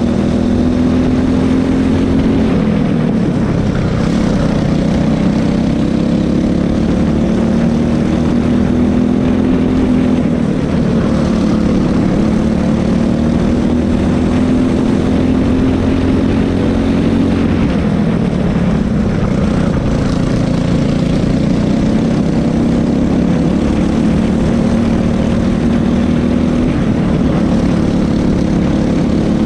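Cadet racing kart engine at full throttle, heard onboard, its pitch climbing slowly along the straights and dropping sharply about four times as the kart slows for corners. Wind and tyre noise run underneath.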